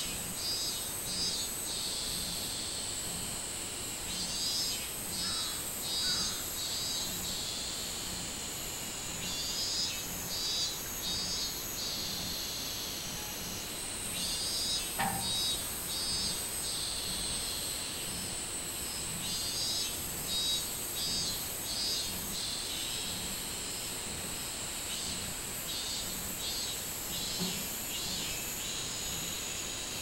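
Robust cicadas (minmin-zemi, Hyalessa maculaticollis) singing: pulsed 'min-min-min' phrases of three or four beats, repeating every four to five seconds over a steady high drone. A brief sharp click comes about halfway through.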